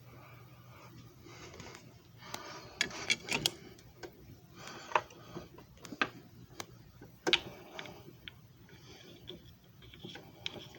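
Irregular clicks, knocks and short rustles of a JFJ Easy Pro disc repair machine being handled, with a faint low hum during the first couple of seconds.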